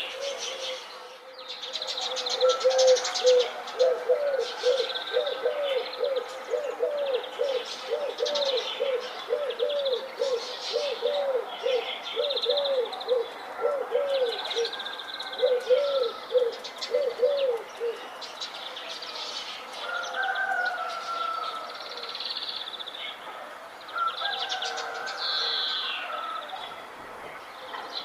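Several birds chirping and singing. A lower call repeats about twice a second from a couple of seconds in, and stops about two-thirds of the way through.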